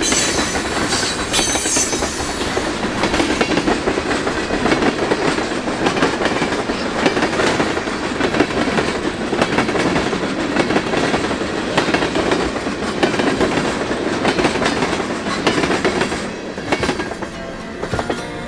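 Freight train tank cars rolling past at speed, steel wheels clacking and rumbling on the rails, with a high hiss over the first couple of seconds. The noise eases off about sixteen seconds in as the last cars pass.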